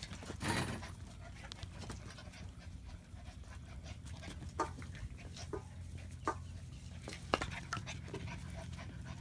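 German Shepherd puppies, nearly 8 weeks old, playing: panting, with scattered short sharp sounds over a steady low hum. The loudest sharp sound comes about half a second in.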